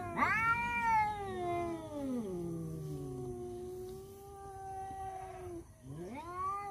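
Rival tomcats yowling at each other in a standoff: long, drawn-out caterwauls that rise and then slowly sink in pitch, two voices overlapping, with a new rising yowl near the end. It is threat yowling between males competing over a female.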